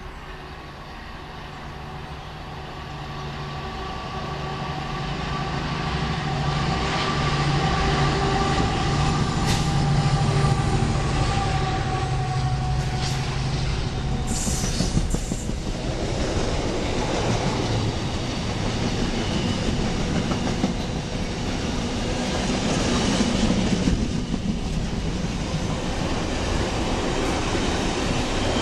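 Freightliner Class 70 diesel locomotives approaching and passing at the head of a container train, the engine note growing louder over the first dozen seconds. About fifteen seconds in, a brief high screech, then the loaded container wagons roll past with a steady rumble and wheels clattering over the rail joints.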